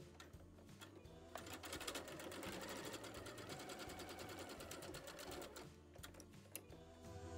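Electric sewing machine stitching a seam: the needle runs fast and steady for about four seconds, starting a little over a second in and stopping near the end. Soft background music underneath.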